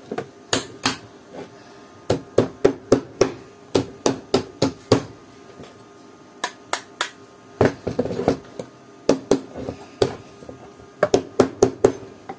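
Small ball-peen hammer tapping the steel clamp bracket of a small EI-core transformer to seat it tight on the laminations. Runs of quick, sharp taps, a few a second, with a pause of about a second and a half midway.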